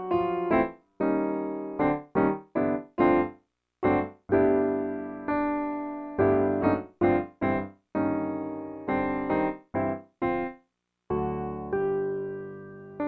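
Piano accompaniment playing short, detached notes and chords, each dying away quickly, with brief silences between them; near the end a longer chord rings out.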